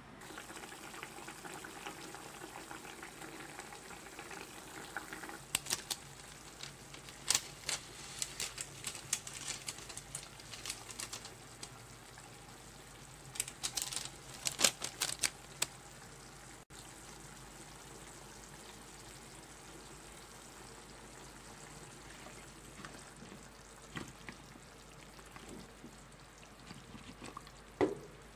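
Pork belly simmering in adobo liquid in a lidded pan, bubbling with a steady soft hiss. Clusters of sharp clicks and pops come through in the first half.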